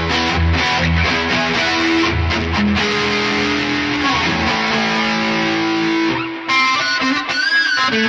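Electric guitar played through a modelled Mesa Boogie Mark IIC+ high-gain lead amp: sustained distorted single notes with string bends, a short break about six seconds in, then a new phrase ending in a bent note with vibrato.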